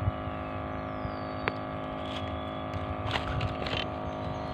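A motor running steadily, a constant hum, with a few light clicks.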